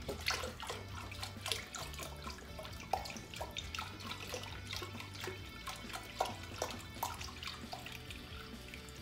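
Chicken broth being poured into a Dutch oven of pork, with irregular splashing and trickling, over soft background music.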